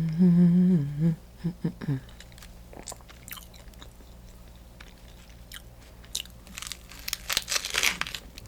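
Close-miked biting and chewing of a crusty sourdough sandwich: scattered crunches, thickening into a run of loud crunching about seven to eight seconds in. A short hummed "mmm" opens the sound.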